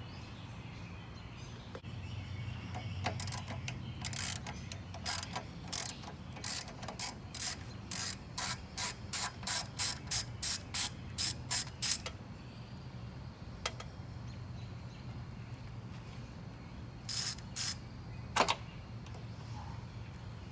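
Ratchet wrench clicking in a run of short strokes that speed up to about three clicks a second, then a few more strokes near the end, as fasteners are loosened during carburetor removal. A low steady hum runs underneath.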